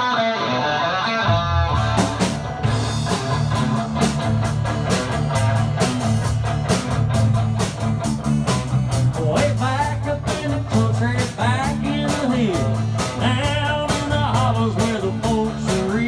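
Live country-rock band playing. An electric guitar starts alone, then bass and drums come in about a second later with a steady beat, and a sung vocal line joins from about nine seconds in.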